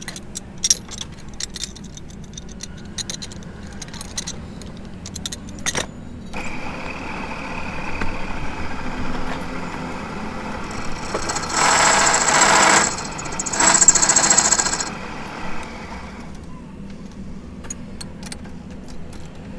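Light metallic ticks and taps, then a machine runs for about ten seconds with a steady whir, louder in two spells of about a second each near the middle.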